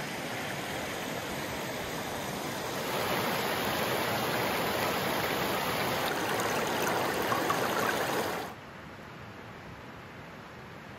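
Running water of a small meltwater stream, a steady rushing hiss that grows a little louder about three seconds in, then drops away sharply about eight and a half seconds in, leaving a faint even hiss.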